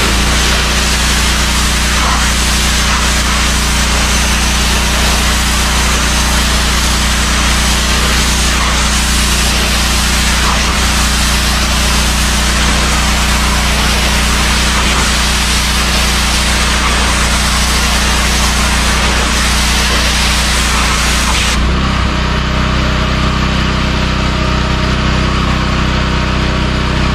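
Pressure washer running with a steady motor hum while its jet hisses against corrugated metal shed siding, blasting off moss and grime. Near the end the spray stops and the motor runs on alone, its note changing as it goes off load.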